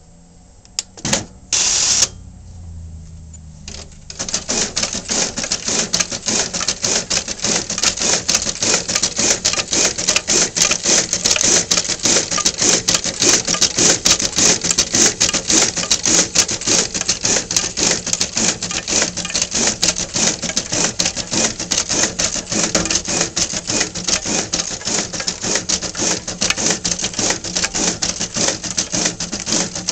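Pitney Bowes W700 (Secap 11K) addressing printer put online and running: a couple of short bursts and a motor hum starting within the first two seconds, then from about four seconds in a continuous fast clicking and whirring as it feeds and prints postcards one after another.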